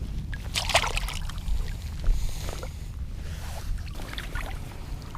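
Water splashing and sloshing in three short bouts around a wading angler, over a steady low wind rumble on the microphone.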